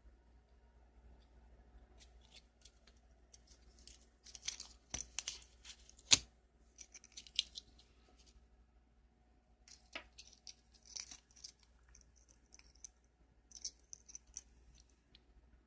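Plastic keychain packaging being handled and opened: crinkling and rustling in short bursts, with a sharp click about six seconds in and another near ten seconds.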